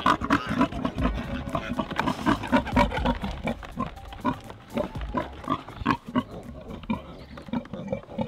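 A Large Black × Wessex Saddleback sow with newborn piglets gives short grunts in quick succession, several a second, without a break.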